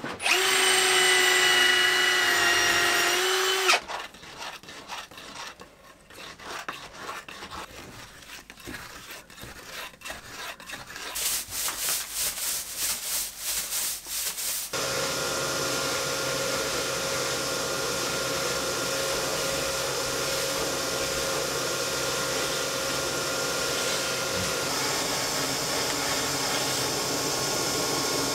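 A cordless drill with a 32 mm spade bit whines steadily as it bores into a clay-straw adobe wall for about four seconds. Then a brush scrapes and sweeps at the wall in irregular strokes that become quick and rhythmic, and about halfway through a wet-and-dry shop vacuum starts and runs steadily.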